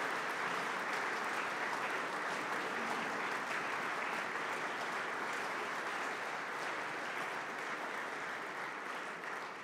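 Audience applauding steadily, a dense even clatter of many hands clapping, easing off a little near the end.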